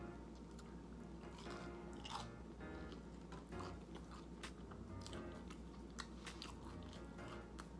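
Close-miked chewing and biting of dense, heavily breaded vegan chicken nuggets, with scattered sharp crunches and mouth clicks, over quiet background music.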